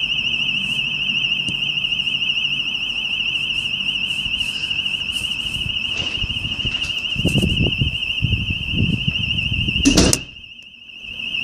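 School alarm sounding continuously as a high, rapidly warbling electronic tone. About ten seconds in, a door bangs, and the alarm sounds much fainter for about a second after it.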